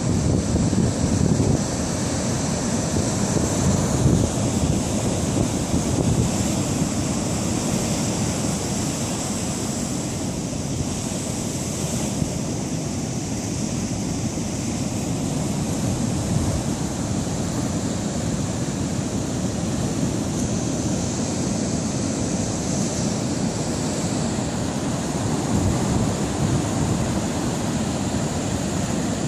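Heavy Pacific storm surf breaking and washing over a rocky beach: a steady, low rush of crashing waves.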